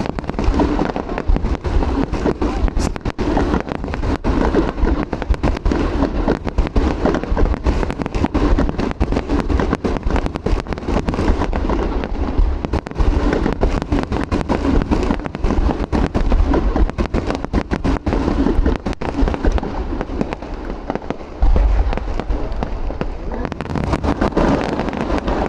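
Fireworks display: a continuous barrage of bangs and crackling shell bursts in quick succession, with a heavier boom about three-quarters of the way through.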